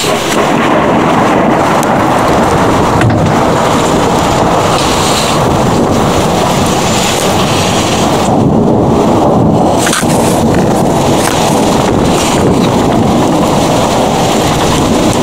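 Heavy rain falling steadily in a thunderstorm: a dense, even wash of sound with a few sharp taps of drops close by.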